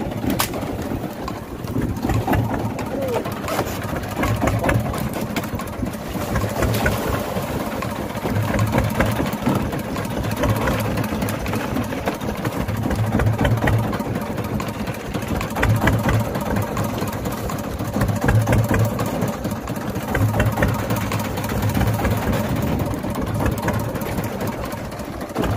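An engine idling steadily, with a low throb that rises and falls every second or two.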